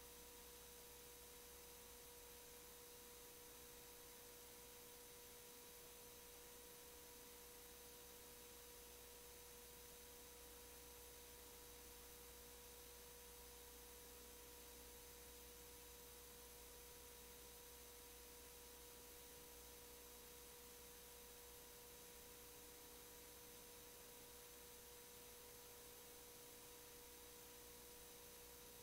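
Near silence: a faint, steady hum at one pitch over low hiss, with no other sound.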